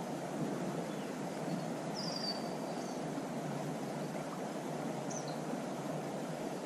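Steady rush of a creek running over rocks, with a short falling bird whistle about two seconds in and a brief chirp a little after five seconds.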